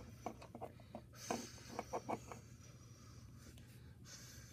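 Small plastic clicks and taps as toy pony figures and accessories are handled and set into a plastic playset. They come as a quick, uneven run over the first two seconds or so, then thin out, over a faint steady low hum.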